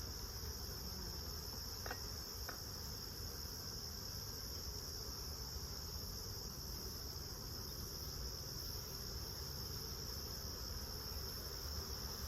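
Steady, unbroken high-pitched trill of field insects, with two faint clicks about two seconds in.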